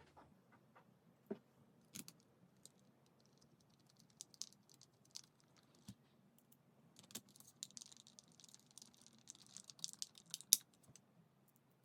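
Faint, scattered clicks, taps and light rattles of small parts being handled during steering wheel disassembly, with a stretch of rustling or scraping about eight to ten seconds in and a sharper click near the end.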